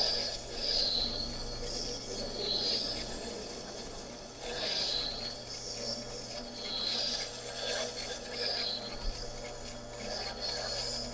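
Woodturning gouge held in a sharpening jig and ground against a turning grinding wheel: repeated rasping passes, a new one every second or two as the tool is rolled across the wheel, over the steady low hum of the machine's motor.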